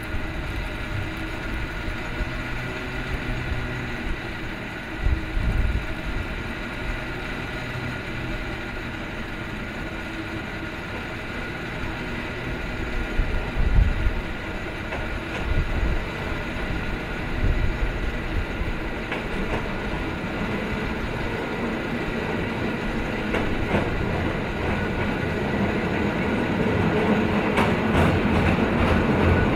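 Cable car rolling uphill on its street track, its rails and running gear clattering over a steady whirring hum, with a few low thumps along the way. It grows louder near the end as the car comes close and passes.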